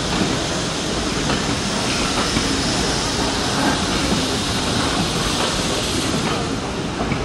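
Steam-hauled passenger train pulling away, its coaches rolling past with steady wheel noise on the rails and a hiss of steam.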